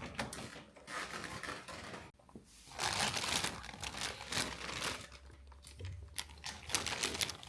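Thin plastic blister packaging crinkling and crackling in irregular bursts as it is pulled away from a boxed figure, with a short pause about two seconds in.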